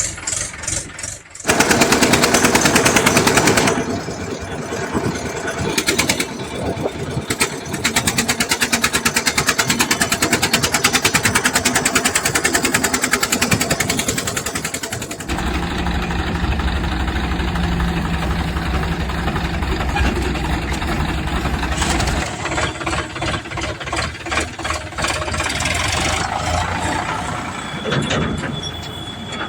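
Engine running with a fast, even chugging pulse, in several sections that change abruptly; for a stretch in the middle it turns into a steadier low rumble.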